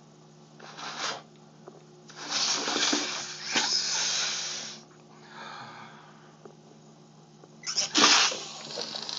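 A small child making breathy blowing and hissing sounds with her mouth, in several short bursts, the loudest near the end.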